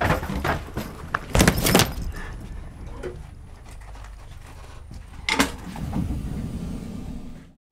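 Low steady rumble inside a train carriage, with rustling and metallic jingling as a person sits down in a seat. The loudest clatter comes about a second and a half in, and another just past five seconds.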